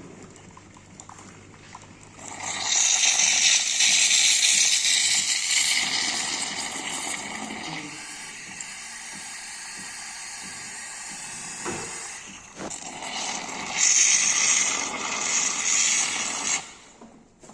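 Hot-drink machine hissing and gushing as it dispenses. A rushing hiss starts about two seconds in, eases off in the middle, swells again and cuts off suddenly near the end.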